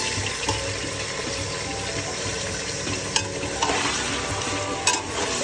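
Bone-in mutton sizzling as it fries in hot ghee and oil in an aluminium pot, stirred with a metal slotted spoon that clinks against the pot a couple of times in the second half.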